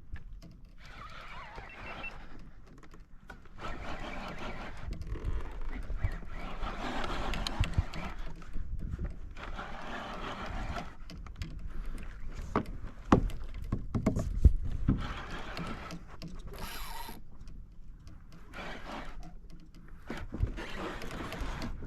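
Wind rumbling on the microphone and water noise while a hooked fish is fought from a kayak, with a run of sharp knocks a little past halfway.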